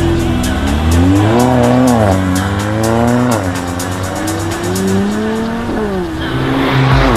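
Mercedes-AMG car accelerating hard, the engine note climbing in pitch and dropping sharply at each upshift, about three and a half and six seconds in, over background music with a steady beat. A loud rushing noise builds near the end.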